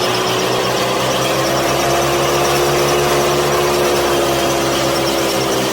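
A small motor running steadily at an unchanging speed, with an even low pulse and a steady hum.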